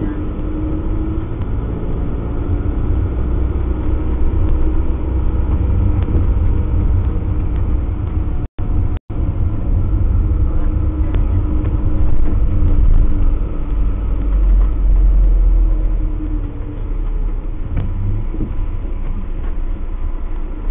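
Motorhome cab noise picked up by a dashcam microphone: a steady low engine and road rumble while driving. The sound cuts out twice for a split second about eight and a half seconds in.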